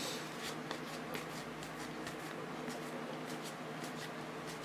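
Trading cards being handled and flipped through by hand: a string of soft, irregular clicks and slides over a steady low hum.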